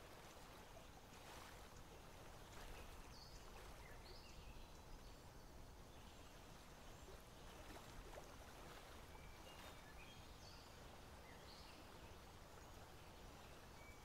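Near silence: faint outdoor background hiss and low rumble, with a few faint, short high chirps scattered through it.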